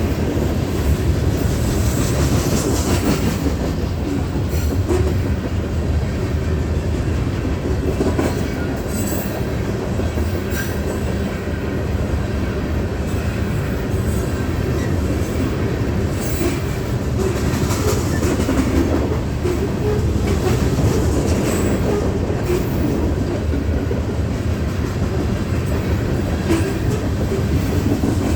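Union Pacific coal train's cars rolling past at steady speed: a continuous low rumble with wheels clicking over the rail joints.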